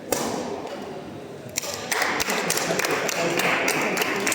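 Crowd of many voices talking and calling at once, swelling louder about two seconds in, with scattered sharp clicks and taps.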